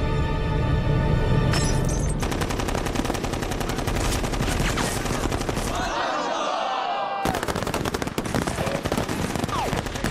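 Film score music, then about two seconds in rapid automatic gunfire breaks in, a dense stream of shots that carries on to the end, with voices briefly heard over it in the middle.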